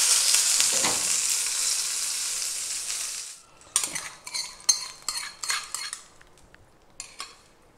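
Curry leaves and mustard seeds sizzling and spitting in hot sesame oil in a small tempering pan, the sizzle dying away after about three seconds. Then a metal spoon scrapes and knocks against the pan in a series of sharp clicks as the tempering is scraped out.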